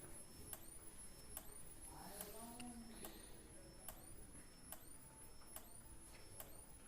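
Near silence: room tone with faint, regular ticks about twice a second, and a faint voice briefly about two seconds in.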